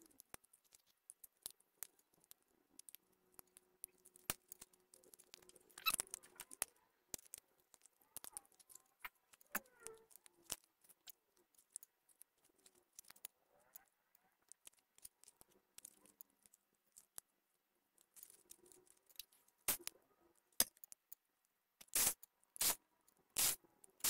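Small clicks and taps of laptop parts being handled and fitted: ribbon-cable connectors pressed home and the battery seated in the chassis. A run of four or five sharper clicks comes near the end.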